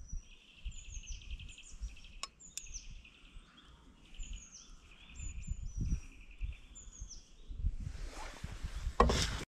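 Small songbirds calling: repeated short chirps that fall in pitch and several buzzy trills, over an uneven low rumble. A brief loud rush of noise comes near the end, then the sound cuts off.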